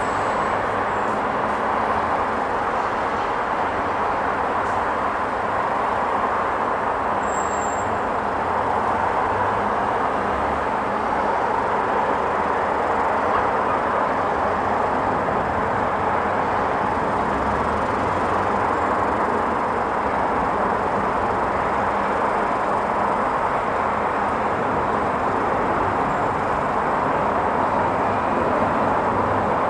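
Boeing 787-9 Dreamliner's jet engines heard from afar as the airliner climbs after takeoff: a steady, even roar that grows slightly louder near the end.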